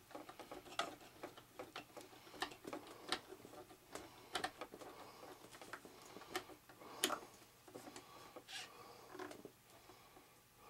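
Small screwdriver turning long screws through an elevator control horn: faint, irregular clicks and ticks, with a sharper click about seven seconds in.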